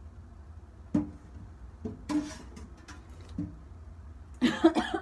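Short non-speech vocal sounds from a person: a few brief throat sounds, then a louder burst of several quick pulses near the end.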